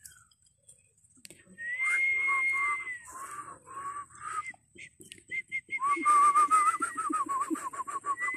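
A woman whistling a tune by mouth: a long high note, then a string of short lower notes, and after a brief pause a longer wavering phrase.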